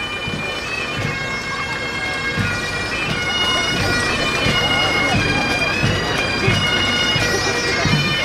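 Highland bagpipes playing a tune, the melody stepping between held notes over the steady drones.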